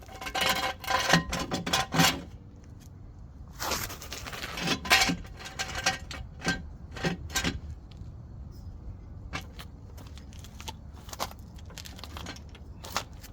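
Metal workshop gear being handled: clinks, rattles and scrapes in two bunches, in the first two seconds and again around four to five seconds in, then scattered single ticks.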